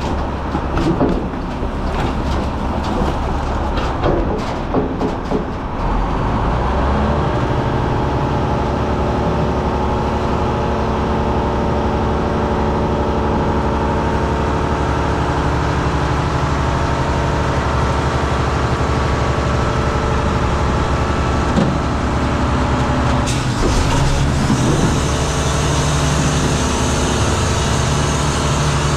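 Front-load garbage truck's diesel engine running at raised revs to drive the lift hydraulics while its forks hold a dumpster tipped over the hopper. In the first few seconds, trash and cardboard clatter and knock as they fall into the hopper and the steel dumpster bangs; after that the engine and hydraulics run steadily, with a brief change about 23 seconds in.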